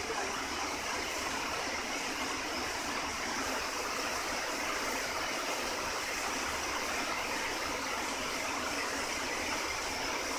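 Long-arm industrial sewing machine running and stitching, a steady even whir with no pauses.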